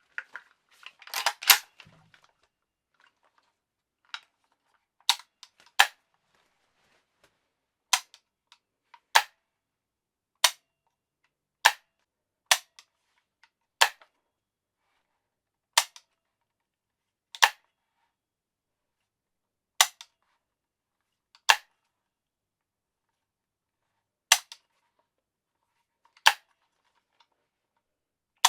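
Handling of an AKS-74U-pattern Krink pistol: a short metallic rattle about a second in, then single sharp metal clicks every one to two seconds, some in close pairs, with near silence between them.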